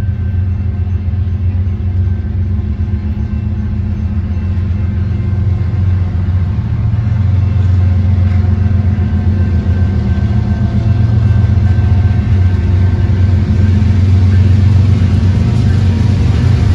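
Diesel locomotives at the head of a BNSF intermodal freight train approaching. Their engines make a low, steady rumble that grows gradually louder.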